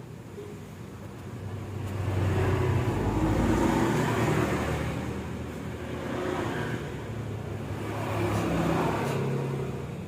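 Cat coughing and gagging as if about to vomit, in three harsh, rasping bouts.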